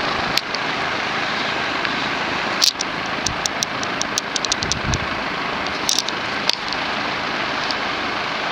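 Southern Breeze (Union) 36-inch four-blade industrial ceiling fan running at full speed: a steady rush of air from its straight aluminum blades, with a few light ticks scattered through it.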